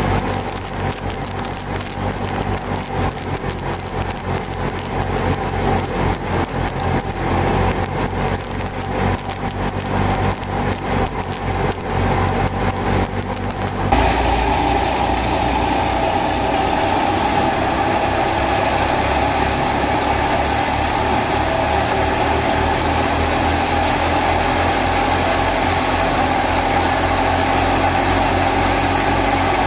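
Fiat 480 tractor's diesel engine running steadily while powering a wheat thresher, with dense crackling and rattling over it. About halfway the sound changes abruptly to a steadier machine drone with a strong mid-pitched hum.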